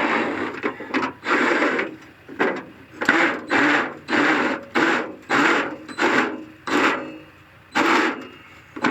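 Hand tool rasping through sheet metal in about a dozen quick, uneven back-and-forth strokes, cutting out or enlarging a hole and throwing off metal swarf.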